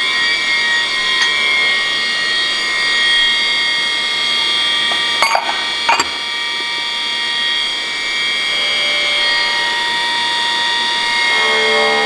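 Steady high-pitched machine whine, with two sharp metal clicks about five and six seconds in. A lower hum joins near the end.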